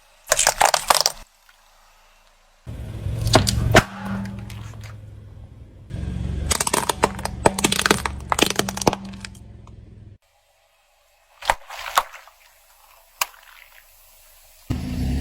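Crisp cracking and crunching of something brittle being crushed, in several separate spells with quiet gaps between them.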